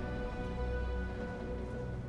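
Film score music holding a sustained chord over a low rumble.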